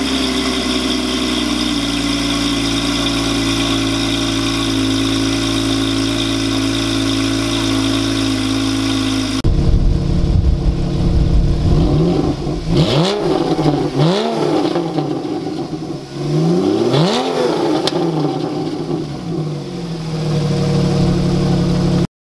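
A 2016 Porsche 911's flat-six runs at a steady fast idle just after a cold start. It is then revved a few times, each rev rising and falling quickly, before it settles back to idle.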